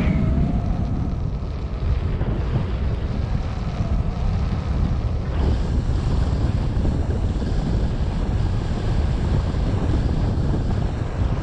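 Wind buffeting the microphone during unpowered paraglider flight: a steady low rush of airflow noise.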